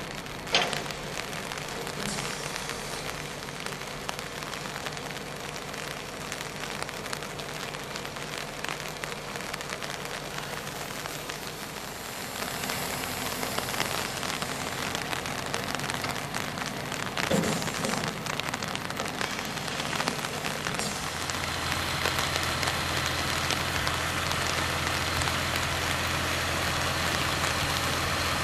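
Tractor running while a rear-mounted steel grader blade scrapes slush and gravel along a road, a steady gritty hiss with a couple of sharp knocks. The engine's low hum grows louder in the last third.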